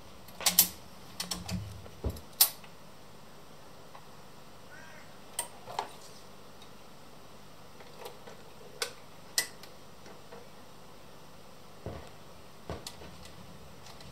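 Braun PS 600 turntable's tonearm and mechanism giving about a dozen sharp, irregular clicks and knocks, the loudest in the first few seconds, over a faint steady hum.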